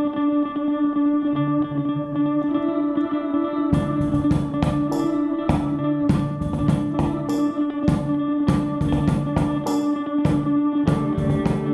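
Instrumental post-rock loop track playing back: sustained electric guitar tones over a held drone note, with drum hits coming in about four seconds in and keeping a steady beat.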